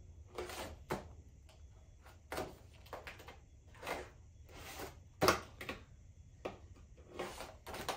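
A fingerboard's small wheels rolling back and forth across a duct-tape half-pipe in a series of short rushing runs, with a sharp clack of the board a little past halfway.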